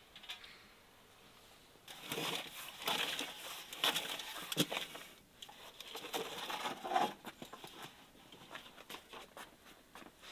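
Irregular scrapes, clicks and rustles of handling at a brick wood-fired oven as a metal tray of baked pies is reached for and slid out. The sounds start about two seconds in and are densest for the next five seconds, then thin out.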